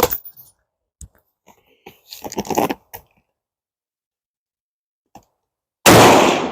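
A single rifle shot from a .308 Savage Axis II about six seconds in: a sudden loud report that trails off over about a second. Before it come quieter rustles and clicks.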